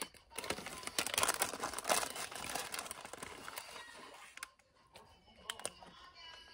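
Paper Jack in the Box fries bag crinkling and rustling as a hand digs fries out of it, a busy crackle for the first three seconds or so, then fainter scattered clicks.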